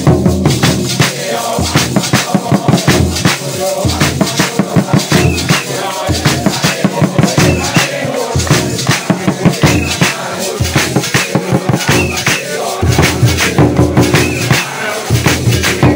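Congregation singing a hymn to rhythmic hand clapping, with a steady drum beat underneath.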